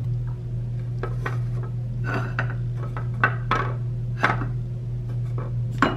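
Small bathroom containers being shifted and set down: light clinks and knocks about every half second to a second, over a steady low hum.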